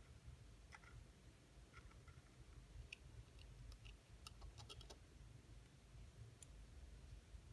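Near silence with faint, irregular small clicks, a cluster of them about four to five seconds in: metal watchmaker's tools touching the parts of a mechanical watch movement being taken apart.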